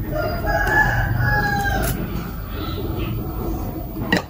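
A rooster crows once in the background, a call of nearly two seconds that falls slightly in pitch, over close-miked chewing. A sharp click sounds near the end.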